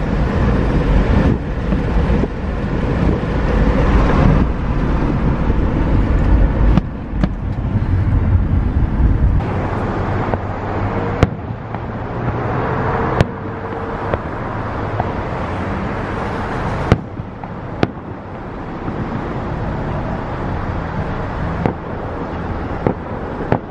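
Road traffic noise from passing cars, with several sharp bangs of fireworks going off in the second half.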